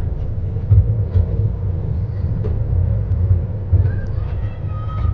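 Ride-on park train carriages running along the track, heard from on board: a steady low rumble with irregular knocks and clatter.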